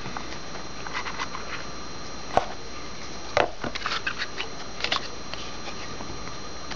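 Trading cards and their packaging being handled: scattered light clicks, taps and rustles as cards are shuffled and pulled out, with a few sharper snaps about two and a half and three and a half seconds in.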